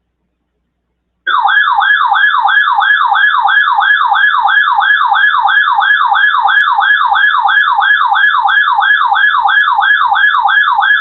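Electronic alert siren of a weather alert radio set off by a tornado drill alert: a loud, rapid warble of falling sweeps, about three a second, starting about a second in.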